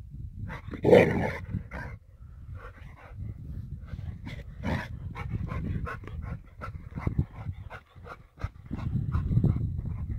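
A dog growling and barking in play, with one loud bark about a second in and a low growl near the end. A garden rake's tines scrape through sand in short strokes.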